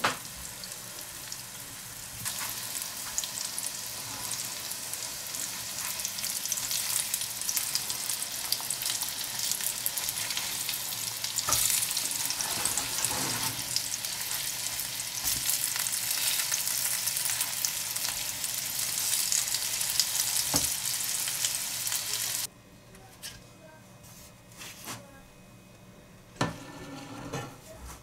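Broccoli patties shallow-frying in vegetable oil in a pan: a steady crackling sizzle that grows louder about two seconds in, with a few knocks of a spatula against the pan. The sizzling cuts off suddenly near the end, leaving a few faint clicks.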